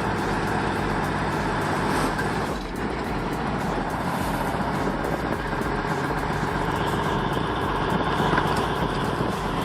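Diesel engine of an M923 military cargo truck running steadily under load as the truck pulls against a tree stump.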